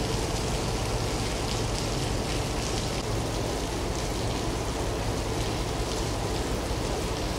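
Steady hiss of running water, with a low hum beneath it.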